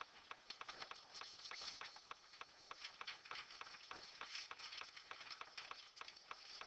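Near silence: room tone with faint, scattered small clicks and taps.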